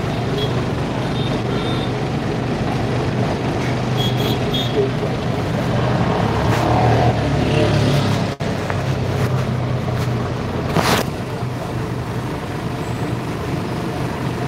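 Inside a running bus: the engine's steady low drone with road and body noise. There is a short hiss about eleven seconds in.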